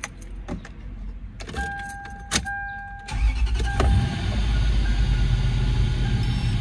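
A few clicks and an on-off electronic chime tone, then about three seconds in the Toyota 2UZ-FE V8 starts on its newly replaced starter and keeps running steadily.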